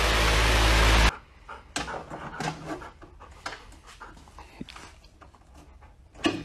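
A large floor fan running with a steady whoosh and low hum, cut off abruptly about a second in. Then an Australian cattle dog panting softly, with scattered small clicks and scuffs.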